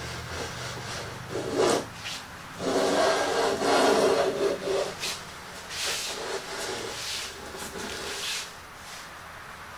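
Metal hand plane shaving the pine edges of a box, a series of strokes. The longest and loudest stroke comes about three seconds in, and fainter strokes follow.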